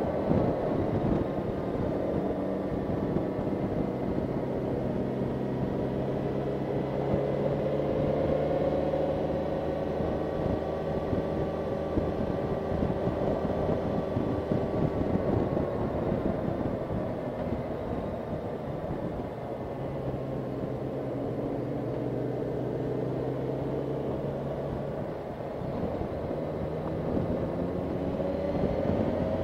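Motorcycle engine running steadily at road speed, its revs rising and falling gently.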